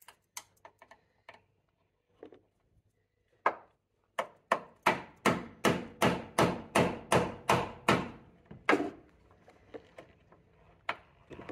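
Hammer striking a metal tool held against the car's strut tower: a few light taps, then a steady run of about a dozen hard blows, roughly three a second, stopping near the end.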